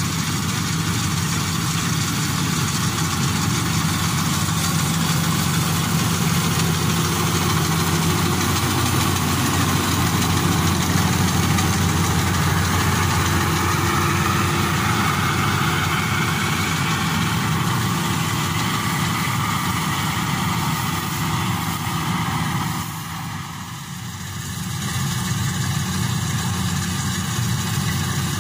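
Maxxi Bimo 102 rice combine harvester running steadily as it harvests rice, a continuous engine drone. The sound drops briefly in level about three quarters of the way through, then returns.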